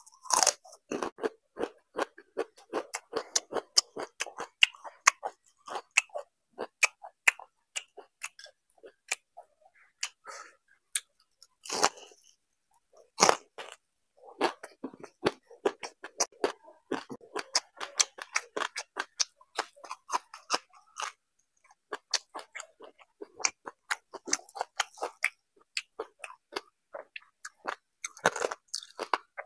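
Close-miked eating: a crisp fried potato chip bitten and chewed, with a dense run of sharp crunches and chewing sounds and a few louder crunching bites.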